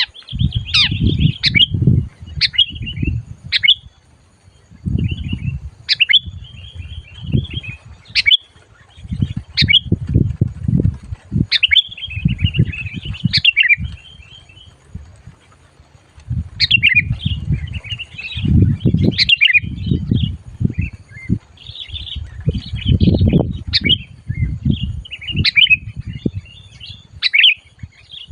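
A macit songbird, used as a trapping lure, calling incessantly in loud bursts of sharp chirps and quick down-sweeping notes, a group every second or two. Low rumbling bursts come and go underneath.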